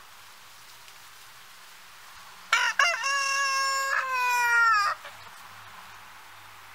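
A rooster crowing once, starting about two and a half seconds in: a few short opening notes, then a long held note that falls in pitch as it ends.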